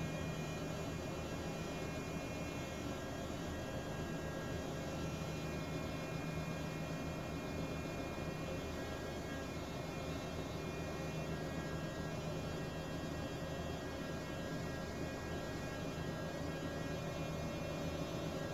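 Running heavy fuel oil purifier and engine-room machinery: a steady hum with many held tones that does not change.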